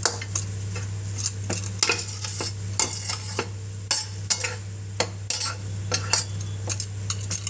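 Metal spatula scraping and stirring a mashed potato filling in a kadai, with irregular scrapes and taps against the pan and a light sizzle. The filling is being cooked with very little oil, so it is sticking and catching on the pan.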